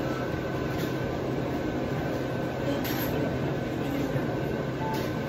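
Steady ambience of a busy indoor shopping area: a constant ventilation-like hum with faint distant voices.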